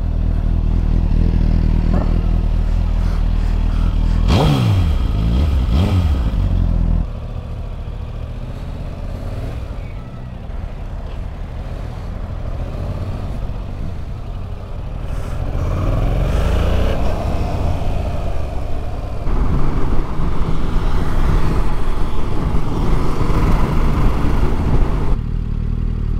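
Yamaha R7's parallel-twin engine on its stock exhaust, riding along: revving up and down with a few gear changes, then running lower and quieter for a while before pulling harder again near the end.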